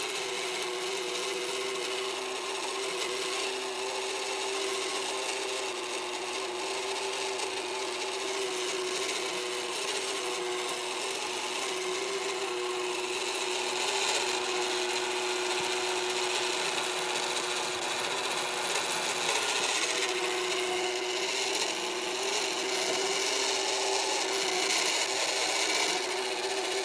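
Magicfly egg incubator's synchronous motor, the egg-turner drive, running with a loud, steady scraping grind over a constant hum. It gets a little louder about halfway through.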